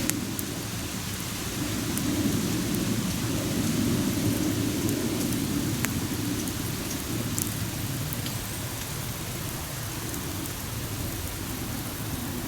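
Campfire burning with a steady low rush and scattered sharp crackles and pops.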